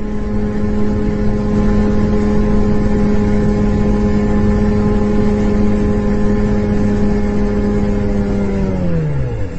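Light aircraft's engine running steadily. Its pitch then falls away over the last second or so until it dies out: the engine losing power in flight.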